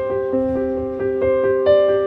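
Background music: a piano playing slow, held notes.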